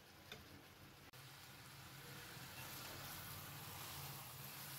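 Faint sizzling of half-cooked tinda sabzi in masala in a steel kadai, growing a little louder after about two seconds, with one light click near the start.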